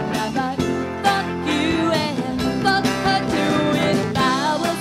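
A live band playing a pop-soul song with guitar and a steady beat. A voice slides through the melody between the lyric lines.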